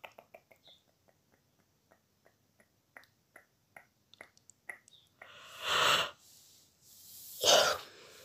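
A man's breathing: faint scattered clicks for the first few seconds, then two loud breathy exhalations, one about five seconds in and a louder, shorter one near the end.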